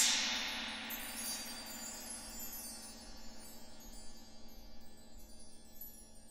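Metal percussion struck once, ringing out in a long shimmering chime-like decay full of high overtones, with faint high tinkling over it.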